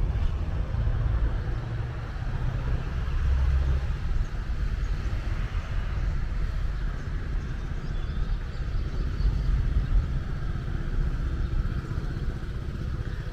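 Low, uneven engine rumble of a small river-crossing boat's outboard motor as it approaches, mixed with wind rumble on the microphone.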